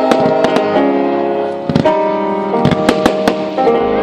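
Fireworks going off: a string of sharp bangs and cracks from bursting shells over a pop song with held notes.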